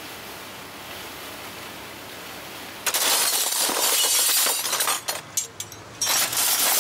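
A heap of old metal cutlery, spoons and forks, clattering and clinking as hands rummage through a crate of it. It starts about three seconds in, pauses briefly, then goes on. Before that there is only a low street background.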